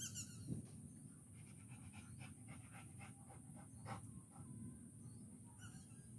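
Faint open-air ambience: a steady high-pitched insect drone, with a few short chirps and ticks over it.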